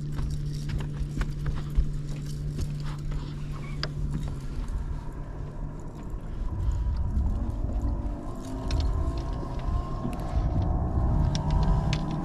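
Scattered light knocks and clicks of gear being handled on a fibreglass bass boat deck, over a low rumble. A steady low hum stops about four seconds in, and a faint wavering tone comes in over the second half.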